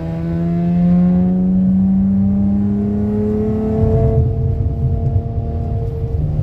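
Dodge Challenger engine breathing through a freshly fitted Spectre cold air intake, pulling under light acceleration with its note climbing slowly, then settling into a lower, steadier drone about four seconds in.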